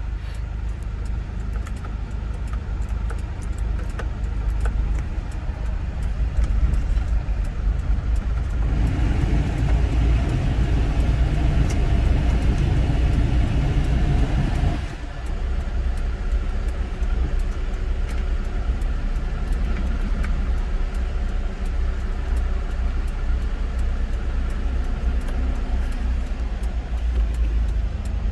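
Hyundai Porter II's diesel engine idling, heard from inside the cab as a steady low rumble. From about nine seconds in, the cab's heater blower fan adds a louder rushing of air, which cuts off suddenly about fifteen seconds in.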